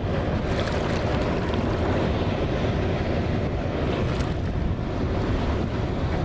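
Steady low rumble of M3 amphibious bridging vehicles driving through the river, mixed with wind buffeting the microphone and water washing.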